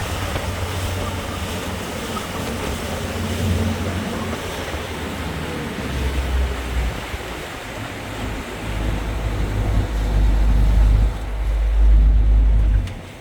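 Wind buffeting the microphone over rushing water. The low rumble comes in gusts that grow stronger over the last few seconds, then cuts off suddenly near the end.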